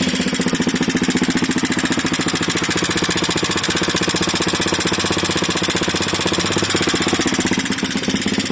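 Minsk X250 motorcycle engine running steadily with a fast, even knocking, which the owner takes to be the valves.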